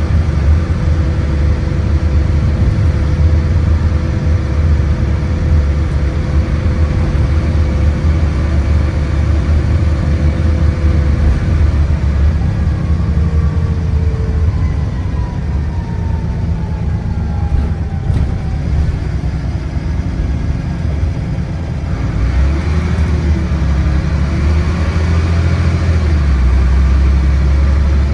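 Dennis Trident double-decker bus's diesel engine and Voith automatic gearbox heard from a seat on board while under way: a steady, loud low rumble mixed with road noise. A whine falls in pitch around the middle as the bus eases off, and the engine comes back on load near the end.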